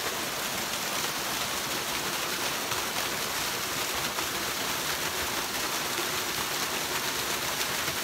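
Small waterfall, two thin cascades splashing into a rocky pool: a steady rush of falling water.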